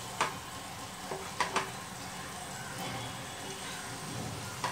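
Chopped spinach, fenugreek and potatoes sizzling in oil in a pan over high gas. A spatula stirs through the greens and knocks sharply against the pan a few times.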